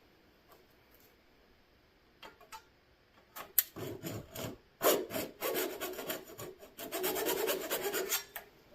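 Hand hacksaw cutting the end off a motorcycle throttle grip. After a quiet start and a couple of light knocks, quick back-and-forth rasping strokes begin about three and a half seconds in and stop shortly before the end.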